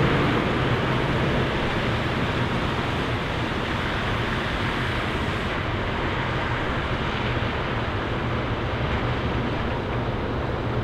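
Volvo FH13 540's 13-litre straight-six diesel running steadily as the truck manoeuvres at low speed, with a steady rushing noise over the engine.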